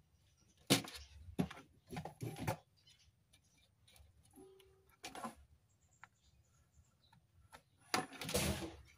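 A handful of short knocks, taps and scrapes from a circuit board and soldering tools being handled on a workbench. The loudest is a sharp knock about a second in, and a longer scraping rustle comes near the end as the board is shifted.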